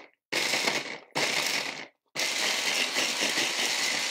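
Electric hand blender's chopper attachment pulsed on carrot chunks: two short bursts of the motor, then a longer run from about two seconds in.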